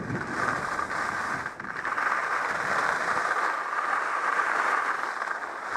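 Volkl Kink skis sliding and scraping over firm, chunky groomed snow at speed: a steady rush that dips briefly about a second and a half in.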